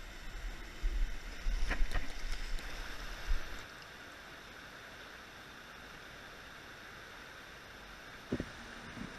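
Steady rush of river water, with wind buffeting the microphone in gusts for the first three seconds or so. Two short knocks come near the end.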